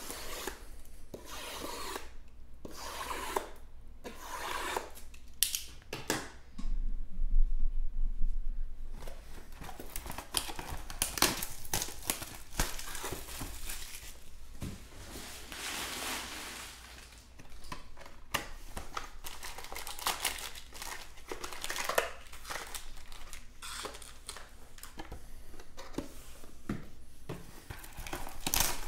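Crinkly plastic shrink wrap being torn off sealed trading-card boxes and crumpled, with cardboard boxes being handled and a box lid opened. Rustling and tearing go on throughout, loudest about seven seconds in.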